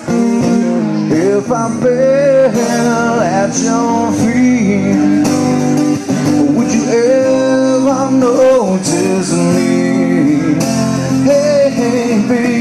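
A man singing over his own strummed acoustic guitar in a live solo performance, his voice rising and falling in long held notes between steady guitar chords.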